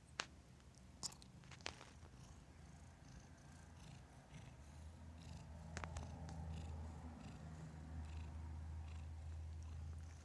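A domestic cat purring: a low, steady rumble that grows louder about halfway through, with a few sharp clicks in the first two seconds.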